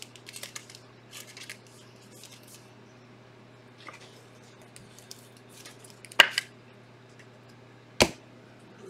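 Trading cards being handled at a table: light rustling, then two sharp clicks about six and eight seconds in, over a faint steady low hum.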